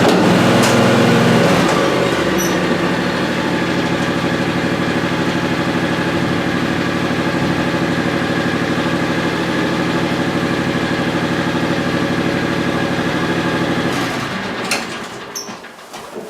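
Old tractor's engine running steadily at idle, with a slight change in its note about two seconds in. It shuts off about fourteen seconds in, followed by a couple of faint clicks.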